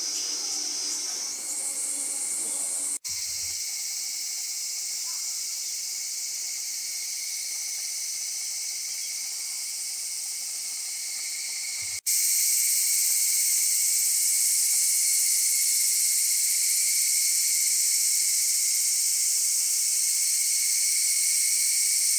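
Steady chorus of calling cicadas, a continuous high-pitched shrilling. It breaks off abruptly about three seconds in and again about twelve seconds in, and is louder after the second break.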